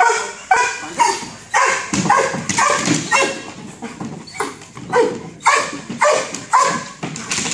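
A Belgian Malinois police dog barking over and over, about two sharp barks a second, with a brief lull near the middle.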